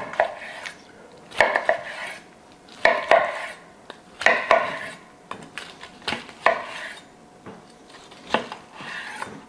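Chef's knife slicing through smoked pork loin ribs between the bones, each stroke ending in a sharp tap on the wooden cutting board. The cuts come one at a time, about every second and a half.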